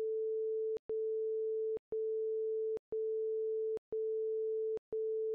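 Interval timer's electronic beeps counting down the rest between rounds: six plain steady tones, about one a second, each lasting most of a second with a short gap and a small click at each start and stop.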